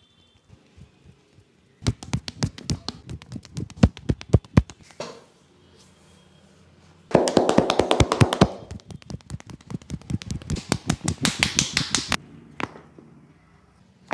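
Rapid hand slaps and taps on a person's head and shoulders during a barber's massage, in two runs of several sharp strikes a second.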